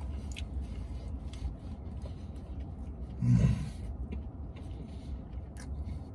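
A man chewing a mouthful of burger, with faint wet clicks of the mouth, over a steady low rumble. About three seconds in comes a short hummed "mm", the loudest sound.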